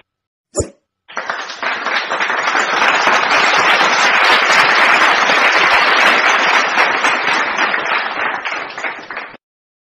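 Crowd applause sound effect: many hands clapping in a dense, steady patter that builds in about a second in, holds, then thins out and stops abruptly near the end.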